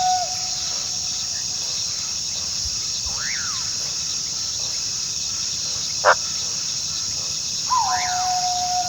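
Coyote howling: a held howl ends right at the start, a short call rising and falling comes about three seconds in, a sharp yip, the loudest sound, about six seconds in, and near the end a new howl rises and then holds a long steady note. A steady high-pitched insect chorus runs underneath.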